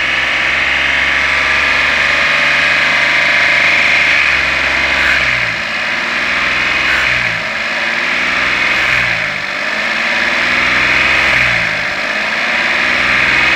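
The Citroen C1's small three-cylinder petrol engine runs at a raised idle with its throttle wedged open while carb cleaner is sprayed into the throttle body. From about halfway through, the revs sag and pick up again several times as the cleaner is drawn in.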